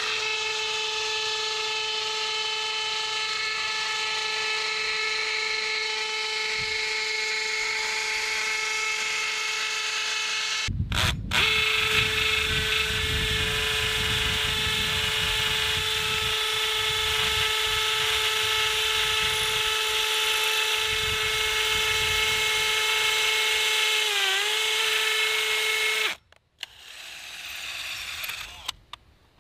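DeWalt cordless drill running with a steady whine, drilling through an aluminium rail into a concrete pad. It runs in two long stretches with a short break, the pitch dips briefly as the bit loads up, and it stops a few seconds before the end.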